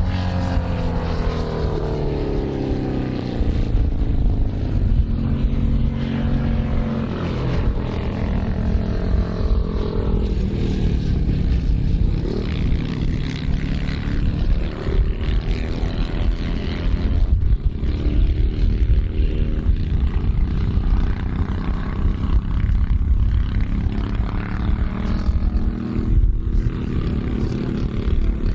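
Britten V1000 racing motorcycle's V-twin engine running loud, its pitch falling over the first few seconds, then rising and falling as it is revved and eased off.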